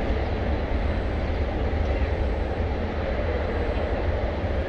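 Steady low rumble of airliner jet engines, holding an even level throughout.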